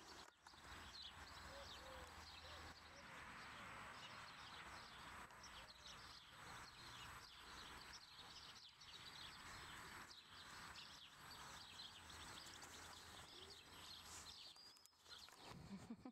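Faint outdoor background with small birds chirping now and then.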